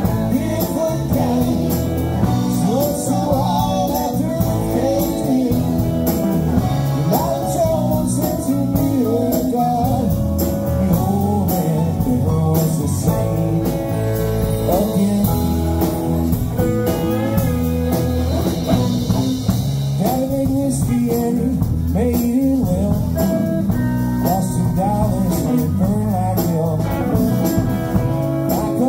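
Live rock band playing electric guitars, bass guitar, drums and an electric keyboard, with a steady drum beat and a melodic lead that bends in pitch.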